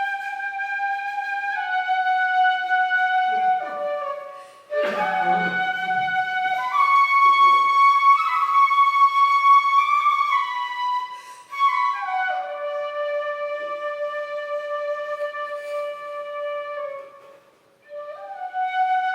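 Shinobue, a Japanese bamboo transverse flute, playing a slow melody of long held notes that step from pitch to pitch, with one sharply accented note about five seconds in.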